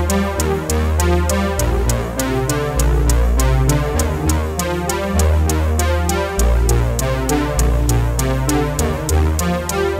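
Electronic background music: a synthesizer over a steady drum-machine beat and a changing bass line.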